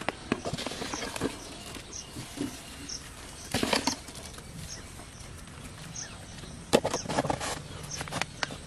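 Irregular clicks, crackles and rustles of bait, wet rice and seeds, being worked in a plastic bowl, with denser clusters a third of the way in and again near the end. A faint high chirp repeats about once a second.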